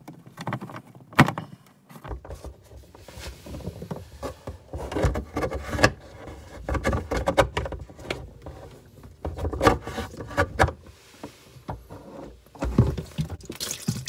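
A plastic RV water-filter canister being worked loose and unscrewed by hand. There is a sharp knock about a second in, then irregular bouts of scraping, knocking and rattling.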